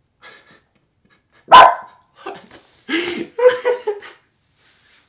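Domestic dog barking: one loud, sharp bark about a second and a half in, then several more barks in quick succession.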